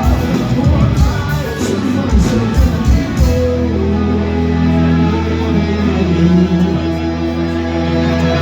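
Live rock band with electric guitars and drums playing the closing bars of a song. The drum hits stop about three and a half seconds in, leaving a held guitar and bass chord ringing out steadily.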